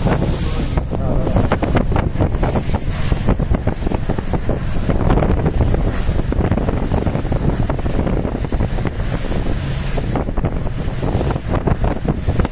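Sargo 31 motorboat pounding through short, steep storm waves: hull slaps and spray rush past in quick irregular bursts, over a heavy wind buffeting the microphone.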